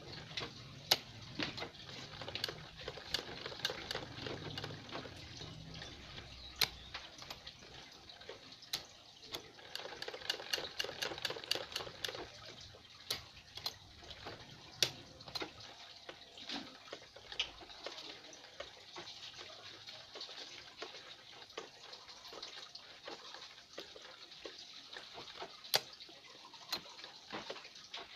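Old sewing machine stitching in short, uneven runs of sharp clicks, over a steady hiss.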